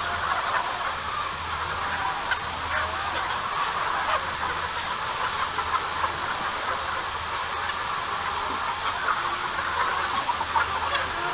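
A large flock of white broiler chickens calling all at once, a dense, steady chatter of many overlapping cheeps and clucks, over a steady low hum.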